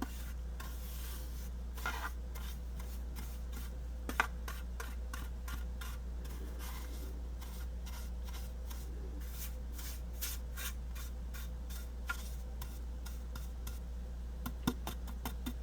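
A small brush sweeping excess embossing powder off a craft project in a run of short, scratchy strokes, with a few light taps.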